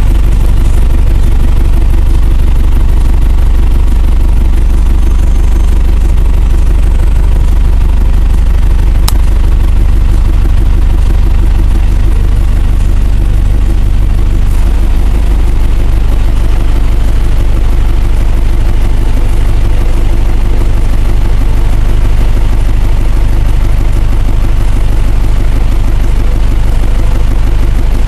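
Cummins 4BT four-cylinder turbo diesel idling steadily while still cold after a cold start, heard inside the cab with the engine sound distorted by the recording. A single short click about nine seconds in.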